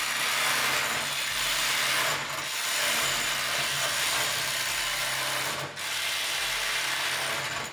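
Cordless impact drivers hammering continuously as they break loose nuts torqued to 150 ft-lb, with brief dips between nuts.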